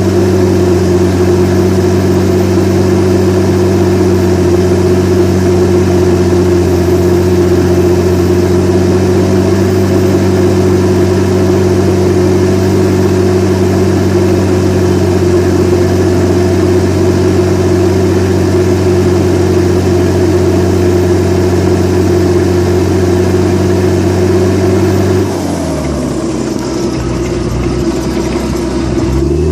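Komatsu D61EX crawler dozer's diesel engine running steadily at high revs. About 25 seconds in, its note drops sharply to a much lower pitch, then climbs back up near the end.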